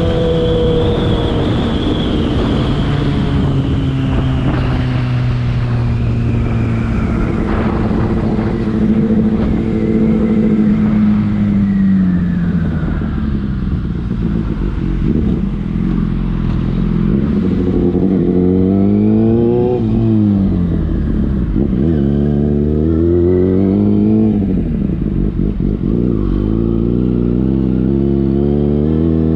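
Yamaha FZ6's inline-four engine through a LeoVince aftermarket exhaust. The revs fall slowly over the first dozen seconds, then rise and fall several times in short pulls, settle low, and climb again near the end.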